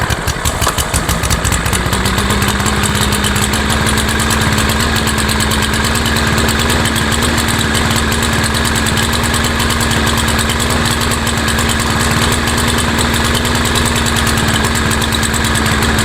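PowerMore 140cc single-cylinder lawnmower engine running just after starting, its speed picking up over the first couple of seconds and then holding steady. It runs as if still being choked, which the owner puts down to a lazy automatic choke.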